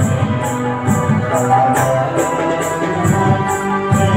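Instrumental music: a melody, most likely on a harmonica, over an electronic keyboard's accompaniment, with a steady high shaker-like beat a little over twice a second.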